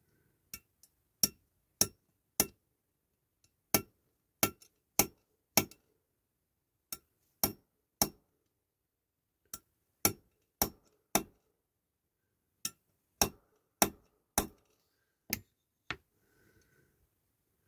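Light, sharp taps on a part of a diecast Dinky Toys road sweeper, driving it into place until it sits solid. There are about twenty taps in bursts of three to six, roughly two a second, with short pauses between bursts.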